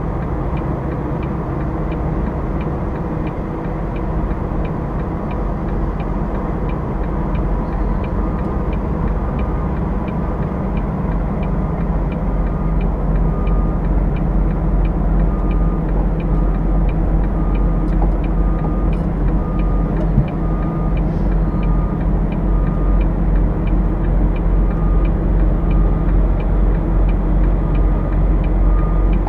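Semi-truck's diesel engine running at low speed in the cab during slow manoeuvring, with a steady fast ticking throughout. From about eight seconds in, a short beep repeats roughly once a second: the reverse warning as the truck backs into a parking spot.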